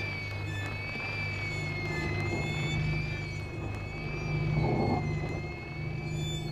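Contemporary music for two violins and electronics. A high tone slowly rises and falls over a low steady drone, evoking jammed radio signals. A brief rougher swell comes about four and a half seconds in.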